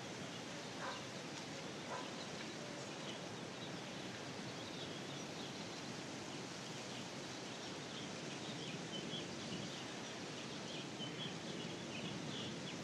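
Quiet outdoor ambience: a steady background hiss with scattered small bird chirps.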